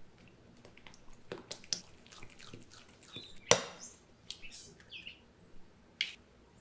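An egg cracked sharply on the rim of a mixing bowl about halfway through. Around it are small clicks and wet squelching from a spatula working in thick chocolate brownie batter.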